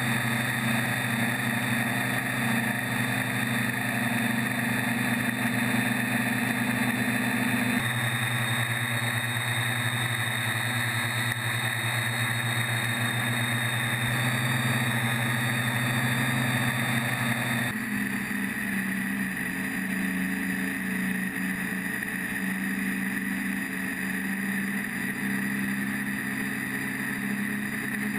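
Electric quadcopter's motors and propellers humming steadily in flight, a whirring whine with a constant pitch. The hum changes pitch abruptly twice, about 8 seconds and 18 seconds in.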